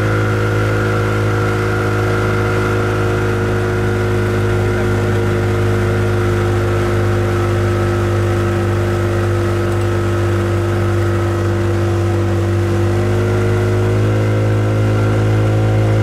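Boat motor running steadily, with a slight rise in pitch about fourteen seconds in.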